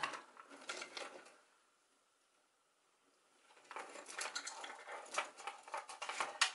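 Power supply cables and plastic connectors rattling and clicking as they are handled inside a metal PC case: a short run of clicks, a pause of about two seconds, then a longer stretch of busy rattling with a sharp click near the end.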